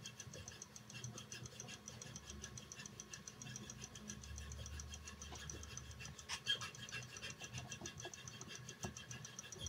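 Light metal clicks from hands adjusting the steel frame and cutter of a watchmaker's topping tool, the loudest about two-thirds through, over a fast, even ticking of about five ticks a second and a low hum.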